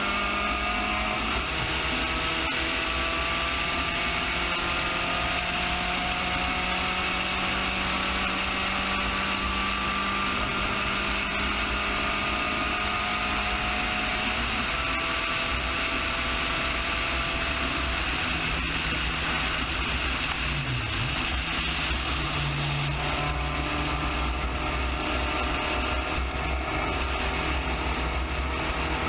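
Spec Racer Ford GEN3 race car's engine running hard under full throttle, its note climbing slowly as the car pulls down a long straight, heard from on board with a steady rush of air and road noise.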